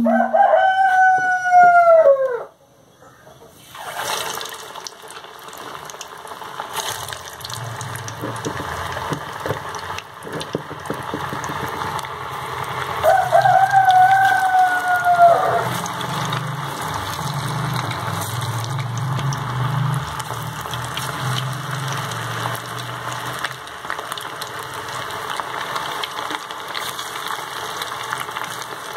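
A rooster crows twice, at the very start and again about halfway through. About four seconds in, a steady sizzle starts suddenly: ulavu meen (flathead fish) in fry masala going into hot oil and frying.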